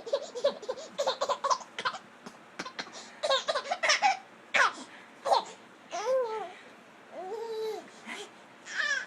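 A baby laughing in quick runs of giggles, then a couple of drawn-out squeals that rise and fall in pitch, and a last short laugh near the end.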